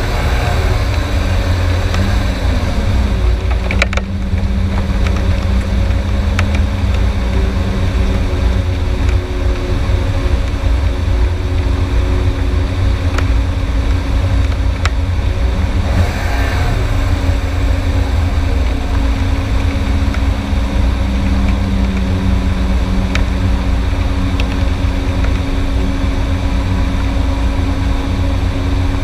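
Car engine running at moderate, slowly changing revs, heard from a camera mounted low on the outside of the moving car, with heavy wind buffeting on the microphone. A sharp knock about four seconds in.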